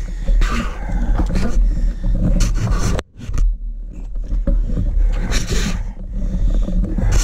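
Close, rough rumbling and scraping of a camera microphone being jostled about, with several short bursts of hiss. The sound cuts out almost completely for a moment about three seconds in.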